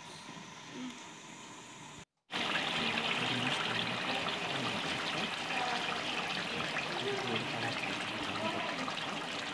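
Chicken curry in tomato gravy simmering in an uncovered pan: a dense, steady bubbling sizzle that starts loud after a brief break about two seconds in, quieter before it.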